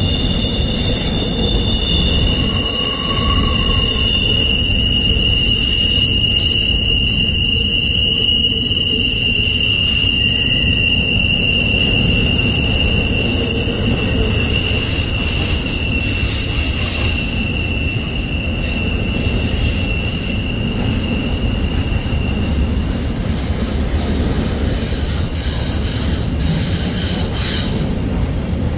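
Double-stack intermodal freight train rolling through a curve, its wheels squealing against the rail. Several steady high-pitched squeals ride over the low rumble of the passing cars, and the loudest squeal fades out about two-thirds of the way through.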